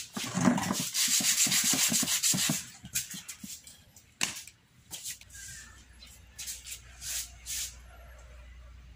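Waterproof sandpaper rubbed by hand in quick back-and-forth strokes over the plastic seat of an old monoblock chair, dulling its eroded surface. The sanding stops after about two and a half seconds, followed by a few short scrapes and a sharp click about four seconds in.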